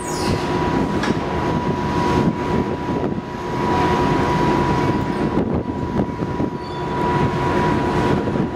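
Car ferry's engines and propellers working at the stern as the ship gets under way: a loud, steady rumble and churn of water, with a steady high-pitched tone over it.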